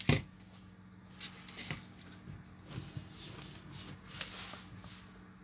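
Workbench handling noises: a sharp knock right at the start, then soft rustles and small taps as solder and a soldering iron are picked up, over a faint steady low hum.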